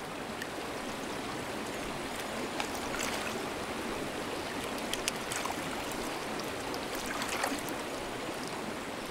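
Steady rush of flowing river water, with a few faint ticks scattered through it.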